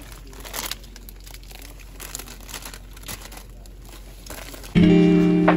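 Plastic food packets crinkling and rustling as they are handled and torn open. Near the end, loud guitar music comes in.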